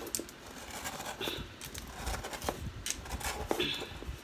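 Hands loosening a sponge cake from its round metal baking pan to unmold it: light scraping and scattered small taps against the pan.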